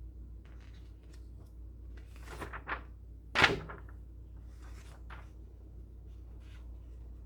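A few short knocks and rustles, the loudest a single thunk about three and a half seconds in.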